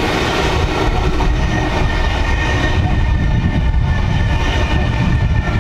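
V-set double-deck interurban electric train passing close by: a loud, steady rumble of wheels on rail, with a steady high whine riding over it.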